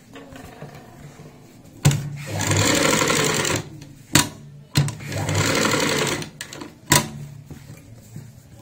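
Domestic straight-stitch sewing machine stitching through fabric in two short runs of about a second and a half each, with sharp clicks between the runs.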